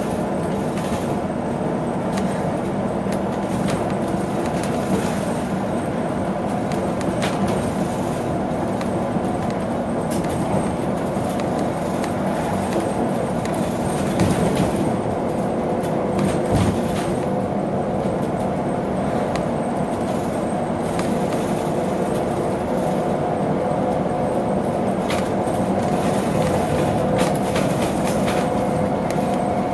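Cabin noise aboard a BYD large electric bus under way: steady road and tyre rumble with scattered interior rattles and clicks, and a motor whine of a few steady tones that grows clearer about halfway through.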